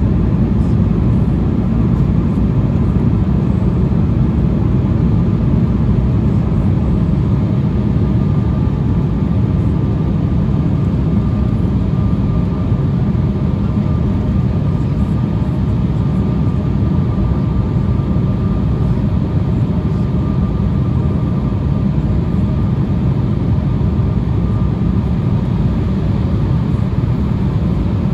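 Steady cabin noise inside an Embraer E175 regional jet on approach: a loud, even low rumble of airflow and its two GE CF34-8E turbofan engines, heard through the cabin near the wing, with a faint steady high tone over it.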